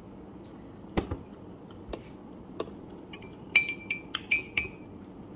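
Tableware clinking: a fork and porcelain mug against a ceramic plate, a few soft knocks, then about three and a half seconds in a quick run of sharp, ringing clinks.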